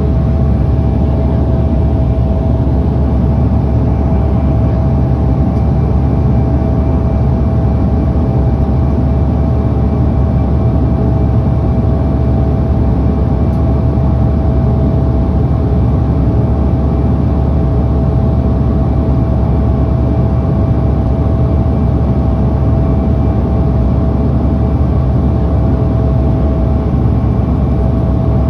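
Steady cabin drone of a Dash 8 turboprop airliner in flight: a deep propeller and engine hum with a constant whining tone above it, unchanged throughout.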